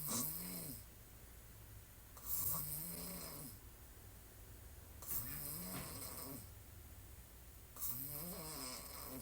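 A woman snoring on her back with her mouth open, one snore about every two and a half to three seconds. Each snore is a low tone that rises and then falls, with a hiss of breath over it.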